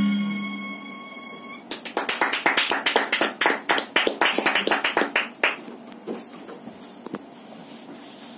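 The last note of the accompanying music dies away. Then a small audience applauds for about four seconds, thinning to a few scattered claps before it falls quiet.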